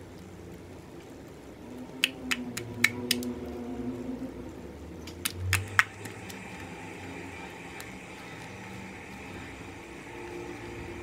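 Homemade glue slime being folded and squeezed by hand, giving a run of sharp little clicks and pops about two to three seconds in and another short run between five and six seconds.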